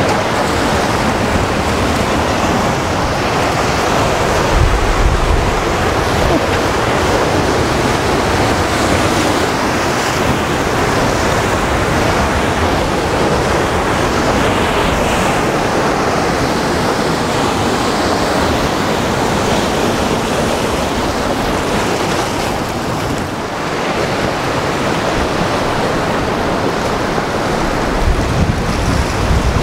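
Rough sea surf washing and breaking against a rocky shore in a continuous roar of noise. Wind gusts on the microphone about five seconds in and again near the end.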